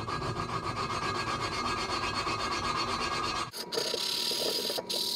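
Valve being hand-lapped into its seat in an aluminium cylinder head: a lapping stick is spun back and forth between the palms so the valve face grinds against the seat through lapping compound, making a continuous gritty rasping. About three and a half seconds in the scrape turns sharper and higher, with brief breaks.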